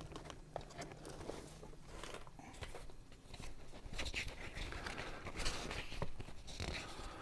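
Faint crinkling and rustling of brown paper bags and paper recipe cards being handled, in scattered short crackles.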